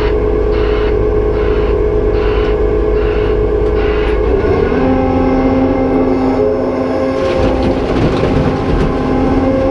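Cat 390F excavator's diesel engine and hydraulic pump working under load, a steady machine drone pulsing about once a second. About four seconds in the note changes and new steady whining tones come in as the hydraulics take up the work, with scattered clicks and knocks later on.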